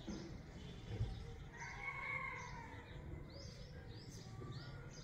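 Birds calling outdoors: a small bird repeats short high chirps at a steady pace, and a longer, lower call sounds about two seconds in. A soft low thump comes about a second in.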